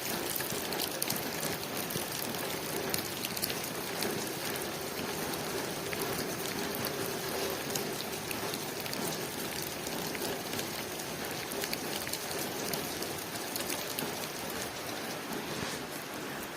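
Steady rain pattering on a window, a dense hiss of rainfall with many individual drop ticks on the glass.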